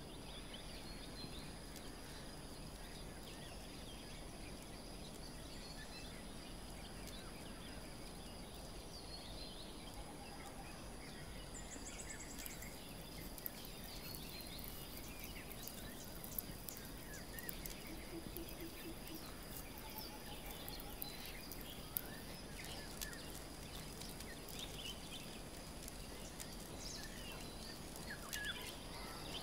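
Quiet outdoor ambience: a steady high insect drone throughout, with scattered faint bird chirps.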